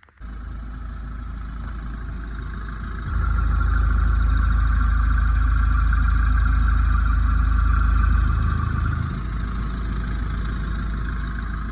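Mahindra Xylo engine running after its valve train was repaired, cutting in sharply at the start and growing louder from about three seconds in to about nine seconds before settling back. It runs clean, the knocking from play in a rocker lash adjuster now gone.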